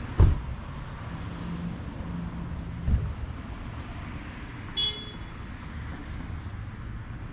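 Low, steady rumble of town street traffic. Two sharp thumps come about a quarter of a second and three seconds in, with a low steady tone lasting about a second and a half between them, and a brief high chirp near five seconds.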